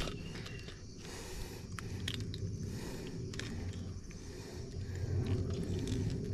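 Close handling noise: scrapes and a few sharp clicks as a caught fish and a plastic fish lip gripper are handled on sand, over a low rumble on the microphone.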